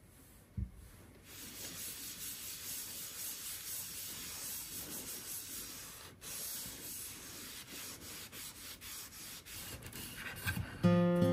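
A light knock, then steady back-and-forth rubbing strokes on wooden cutlery as it is worked by hand for maintenance. Music comes in near the end.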